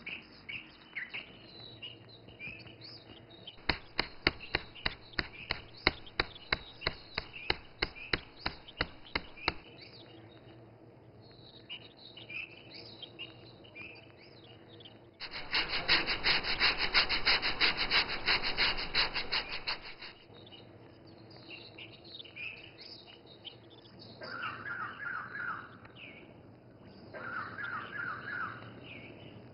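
Catechu (kattha) being worked on a flat stone slab with a round grinding stone: a run of sharp stone-on-stone knocks, about three a second, as the hard lumps are crushed. About halfway through comes a five-second spell of fast, loud rubbing strokes as it is ground into powder. Birds chirp near the end.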